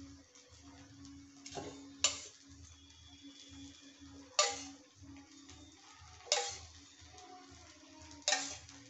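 Background music with a soft, steady low beat and a sharp ringing percussive hit about every two seconds.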